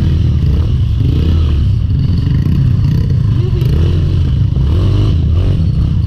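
Trail motorcycle engine running under way, its revs rising and falling, over a heavy steady low rumble.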